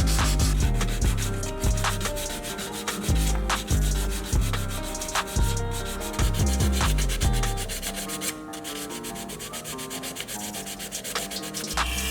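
Sanding by hand on a model car part, rubbing strokes repeating about once a second, lighter after about eight seconds.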